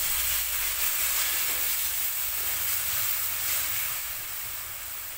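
Hot onion-tomato masala frying in ghee in a kadhai, sizzling and hissing loudly as water is poured onto it and turns to steam. The hiss eases off about four seconds in.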